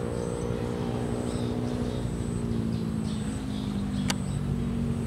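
Engine running steadily nearby, a low hum whose pitch drops slightly about three seconds in, with a single sharp click about four seconds in.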